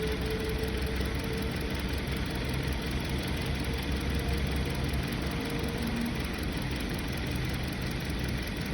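2020 Hyundai Sonata's four-cylinder engine idling steadily with a cylinder 2 misfire (code P0302), which makes the engine shake at idle.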